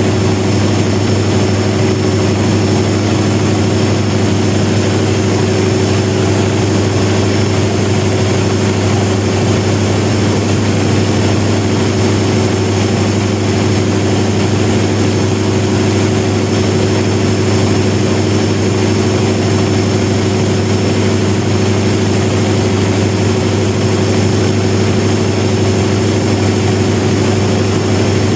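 Large 1000 kW diesel generator set running at constant speed: a loud, even, deep drone with a few steady tones above it, unchanging throughout.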